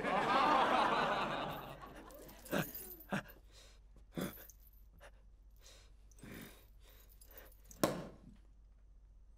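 Party crowd laughing and whooping, fading away over about two seconds. Then near quiet, broken by a few scattered soft knocks and one sharper click near the end.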